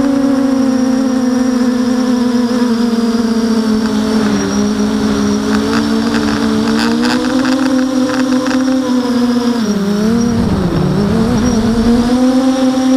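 Electric motors and propellers of an FPV multirotor whining at a steady pitch, heard from the onboard camera. About ten seconds in the pitch drops sharply and climbs back as the throttle is eased off and reapplied.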